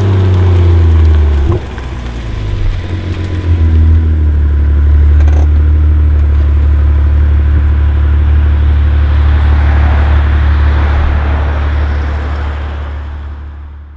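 BMW M2's turbocharged straight-six running through an aftermarket performance exhaust, giving a deep, steady drone. It dips briefly near the start, comes back strong about four seconds in, and fades out over the last couple of seconds.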